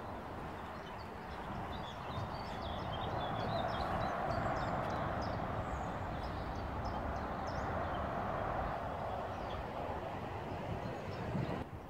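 Footsteps on wooden decking over a steady outdoor hiss, with small birds chirping throughout.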